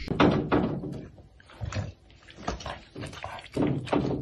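Bulldog nosing and licking at a mirror: five or six short, irregular bursts of snuffling and knocks against the glass.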